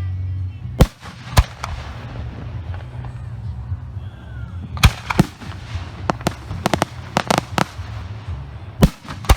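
Aerial firework shells bursting in a professional display: single sharp reports at uneven intervals, with a quick run of reports about six to seven and a half seconds in, over a steady low rumble.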